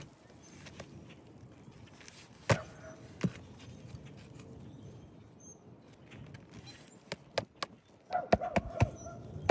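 Irregular sharp knocks and taps, a couple spread out in the first half and a quicker run of them in the last couple of seconds.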